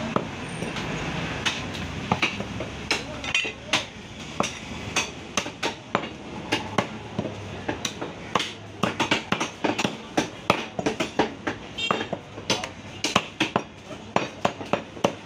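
Butcher's blade striking a wooden chopping block over and over as beef is cut: sharp, irregular chops, several a second, coming thicker from about five seconds in.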